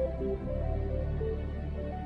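Background music: a soft melodic line of short notes over a sustained low bass.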